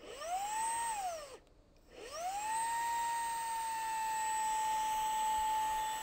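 Xiaomi Mijia handheld cordless vacuum cleaner's motor switched on and spinning up with a rising whine, winding down after about a second, then switched on again about two seconds in and running with a steady high-pitched whine.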